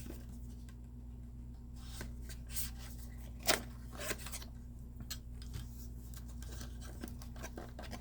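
A diecast model car's box and packaging being handled: scattered light clicks, taps and rustles, the sharpest about three and a half seconds in, over a steady low hum.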